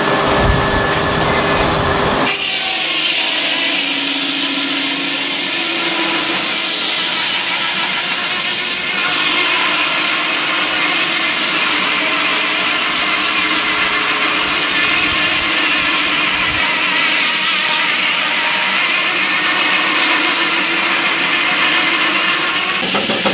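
Sawmill blade cutting through a log: a loud, steady, hissing saw noise that starts abruptly about two seconds in, after a low rumble with a steady hum.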